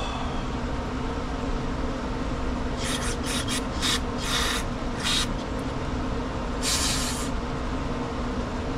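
Short hissing bursts of aerosol spray cleaner fired through an extension straw into a Briggs & Stratton push-mower carburetor's jets and passages, blowing out water that had got into the fuel. About six quick bursts come from about three seconds in, with a longer one near the end, over a steady background hum.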